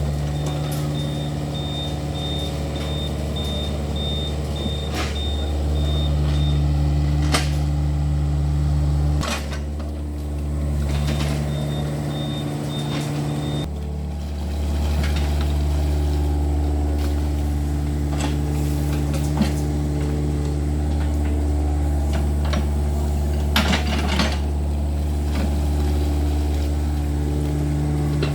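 Yanmar excavator's diesel engine running steadily, its note dipping briefly twice as the hydraulics take load, with scattered sharp metallic knocks. A rapid high-pitched beeping sounds for about six seconds at the start and again for about three seconds midway.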